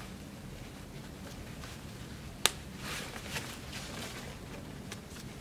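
A press-stud snap on a baby swing's fabric seat pad clicking shut once, sharply, about halfway through, amid faint handling of the fabric.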